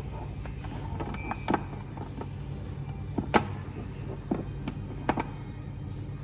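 A few sharp separate clicks and knocks from the charger's plugs and connectors being handled and fitted together, over a steady low hum.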